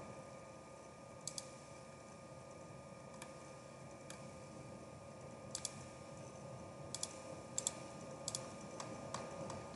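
Faint, scattered clicks of a computer mouse, several in quick pairs, over a faint steady hum.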